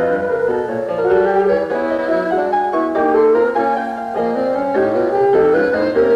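Alto saxophone and piano playing a classical sonata together, with notes changing several times a second.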